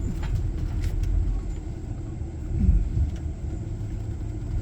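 Car engine and tyres rumbling steadily as the vehicle creeps along a rough dirt road, with a few light knocks.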